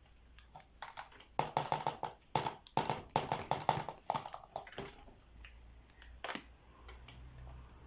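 Balloon of flour being knotted by hand: a quick run of short rubbery squeaks and taps in the middle, then a single click.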